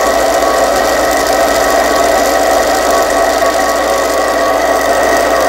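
HiTorque 5100 mini lathe running with its lead-screw gear train engaged for power feed, the carriage driving the tool along a spinning metal rod as it takes a cut. The machine gives a steady whine.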